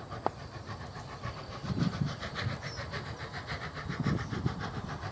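NZR A class 4-6-2 Pacific steam locomotive working a train on the approach, its exhaust beating evenly at about six beats a second, clearer from about a second and a half in. Gusts of wind buffet the microphone underneath.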